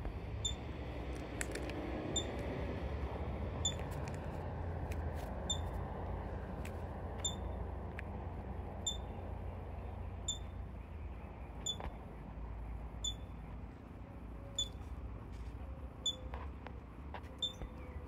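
Ground squirrel giving its repeated alarm call: a single short, high-pitched chirp about every second and a half, steady and even, much like a smoke detector's low-battery chirp.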